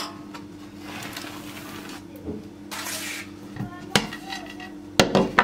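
Baking paper rustling as it is peeled off a cake, then ceramic plates knocking and clinking against each other and a wooden board as the cake is flipped between two plates, the sharpest clatter near the end. A steady low hum runs underneath.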